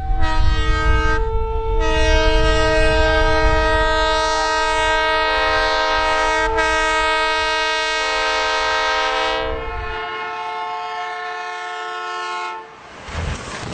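Locomotive multi-chime air horn sounding one long chord of several tones over the low rumble of the train pushing through snow. The horn drops out about ten seconds in, leaving a fainter rumble before the sound changes near the end.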